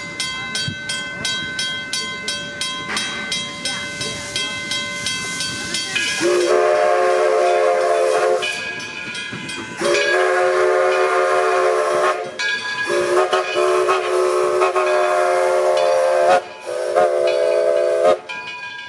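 Steam locomotive whistle sounding four blasts, the last one shorter, after a few seconds of a ringing beat about twice a second, likely the locomotive's bell.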